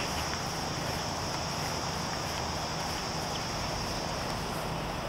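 Steady, high-pitched insect chorus over a low background rumble.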